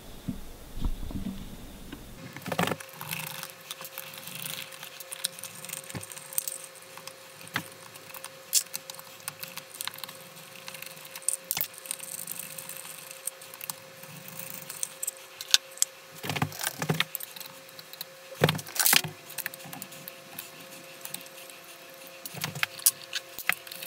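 Hands taking apart a benchtop milling machine's sheet-metal control box: scattered clicks, taps and small metal rattles as screws, the cover and the wiring are handled, with a few louder knocks past the middle. A faint steady hum runs underneath.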